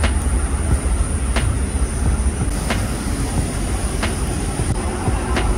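Low rumble of handling and wind noise on a phone's microphone as it is carried along a boardwalk, with a sharp click about every second and a half and a steady high, thin whine.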